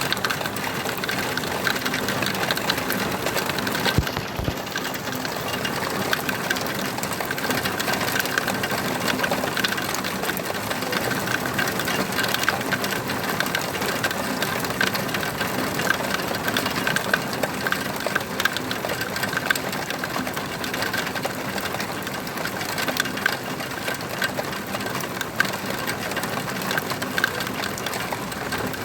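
Steady rain, a dense patter of drops with many sharp little clicks, and a brief low thump about four seconds in.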